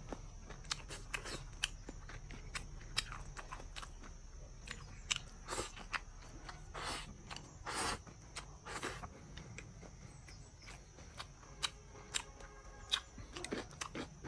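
Close-miked chewing of a mouthful of food with the lips closed: irregular wet smacks and small crunches, with a few louder, longer squelches in the middle.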